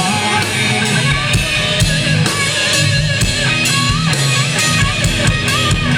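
Live rock band playing an instrumental passage between sung lines: guitars and a drum kit with a steady beat, with a guitar line bending in pitch.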